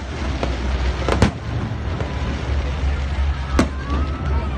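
Aerial fireworks shells bursting over a steady low rumble, with sharp bangs about a second in and again about three and a half seconds in.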